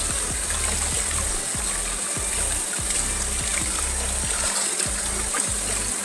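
Kitchen tap running steadily as vegetables are rinsed under it in the sink, with background music.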